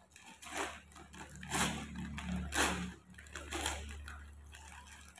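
Gift wrapping paper being torn and crinkled by hand, in about four short rustling bursts roughly a second apart.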